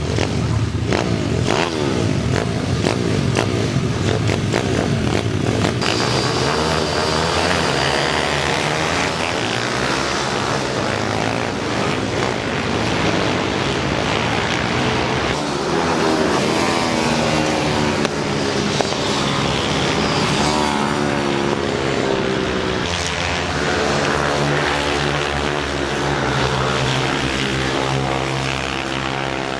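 Supermoto pit bikes' small single-cylinder four-stroke engines racing past, their pitch repeatedly rising and falling as the riders rev hard and shift through the gears. Several bikes can be heard at once toward the end.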